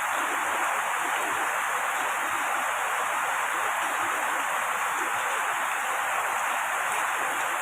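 Rain recording used as a relaxation sound: a steady, even hiss of falling rain that does not change.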